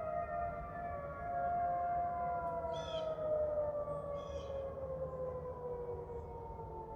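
Outdoor tornado warning sirens wailing during a routine test, the tone sustained and slowly falling in pitch. Two short high chirps cut in about three and four seconds in.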